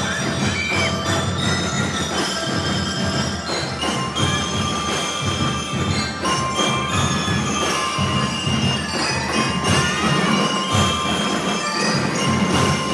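A drum and lyre corps playing: bell lyres ring out a melody of bright metal notes over a steady beat of marching drums.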